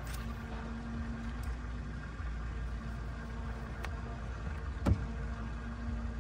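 Steady hum of the fishing boat's motor running, with a few light clicks and one sharp knock about five seconds in.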